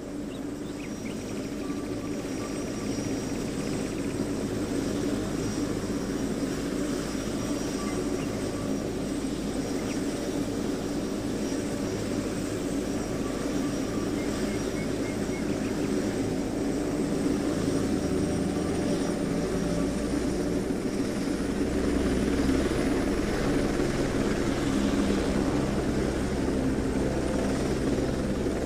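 Small quadcopter drone's propellers buzzing steadily. Their pitch shifts several times and the sound grows louder.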